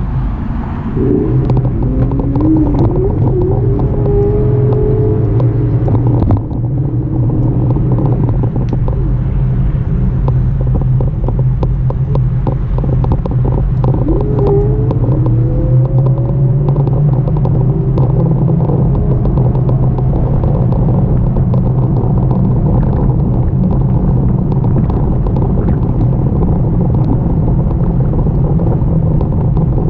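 Steady low rumble of wind and road noise from a moving e-bike, with a whine that rises in pitch about a second in and again around fourteen seconds.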